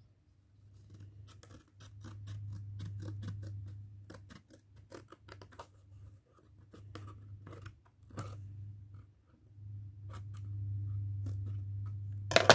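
Scissors snipping through thin cardboard: a long run of short, crisp cuts over a low steady hum, with one louder knock near the end.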